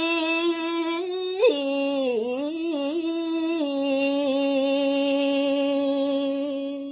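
A woman singing pupuh Ginada, a Balinese traditional sung verse, solo and unaccompanied, drawing the words 'durus aksi' out into long held notes. The pitch bends down and back up in an ornamented passage about two seconds in, then settles on one long sustained note that breaks off just before the end.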